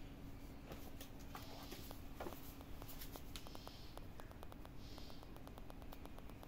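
A kitten's claws and paws scratching and tapping on a hard floor as it plays, a rapid run of faint clicks with a few short scrapes.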